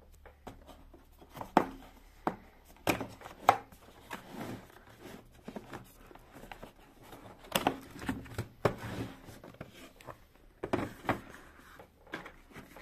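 A cardboard box being handled and turned over by hand: a scattered run of taps, knocks, scrapes and rustles of fingers and palms on the cardboard, with several sharper, louder knocks.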